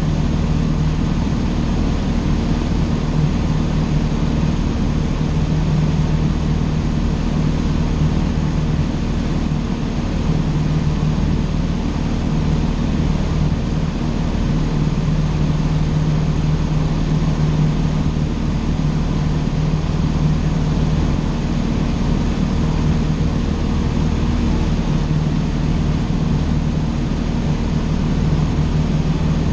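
Cessna 150's four-cylinder Continental O-200 engine and propeller running steadily, a constant drone with no change in pitch.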